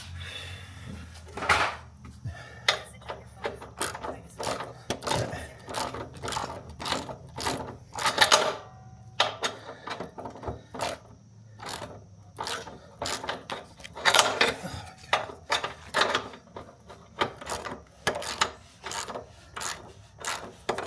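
Irregular metal clicks and scraping as hand tools work a bolt through a mulcher's mounting bracket, with a few louder bursts of clicking about 8 and 14 seconds in.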